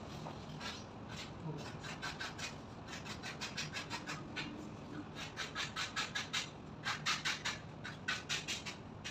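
Quick hand strokes rubbing and scraping against a wood-plastic composite wall panel, coming in runs of about five strokes a second with short pauses between.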